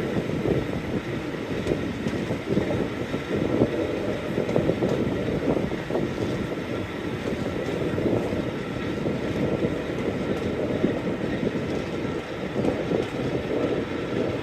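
Train hauled by British Rail Class 45 diesel 45108 running steadily, a continuous rumble and rattle of the train in motion.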